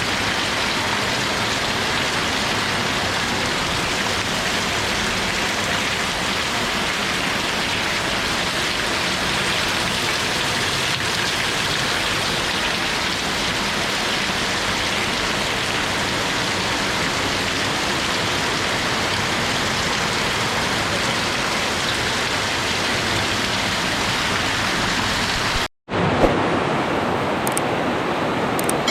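Steady rain, a dense even hiss. Near the end it cuts out for a split second, then resumes slightly duller.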